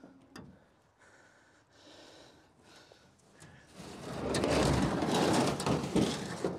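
A tool chest and gear being shoved into a pickup's bed: a few light knocks, then about four seconds in a loud rough scraping and rattling that lasts about two seconds.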